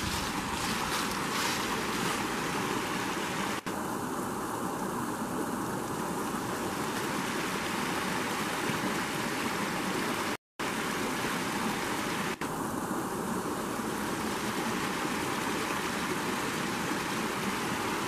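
Shallow rocky brook running and splashing over stones in a small cascade, a steady rushing water noise. The sound cuts out for a moment about ten seconds in.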